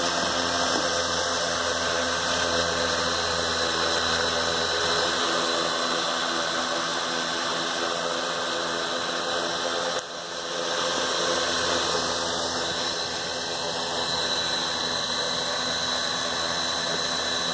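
Blade Chroma quadcopter's four electric motors and propellers idling on the ground, a steady whine of several held tones. The battery is nearly drained, too low for the drone to lift off. There is a brief dip in level about ten seconds in.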